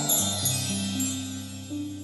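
Slow background music of held low notes under a high, glittering chime shimmer that fades away.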